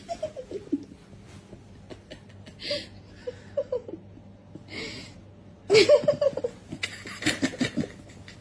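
A person laughing in several bouts with breaths between, loudest about six seconds in.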